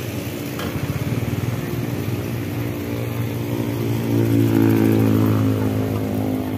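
Motorcycle engine running steadily, growing louder about four seconds in and easing off near the end.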